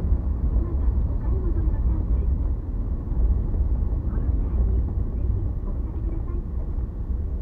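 Low, steady rumble of a car's engine and tyres on the road, heard from inside the cabin.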